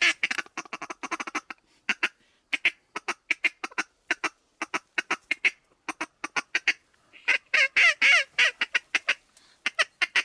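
Waterfowl calling in a rapid series of short quacks and clucks, several a second. About seven seconds in comes a cluster of longer calls that fall in pitch, like honks.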